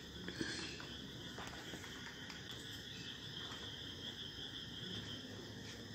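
A wooden stick stirring slime ingredients in a small plastic cup, with a few faint taps, under a steady high-pitched background whine.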